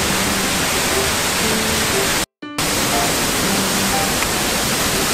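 Waterfall roaring: a loud, steady rush of falling water, with soft background music notes beneath it. The sound cuts out briefly a little over two seconds in, then carries on.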